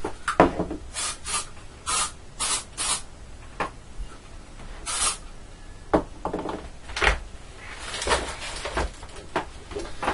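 Aerosol can of spray-mount adhesive spraying in short hisses, about six quick bursts in the first five seconds, onto card. A few sharp knocks from handling are heard in between.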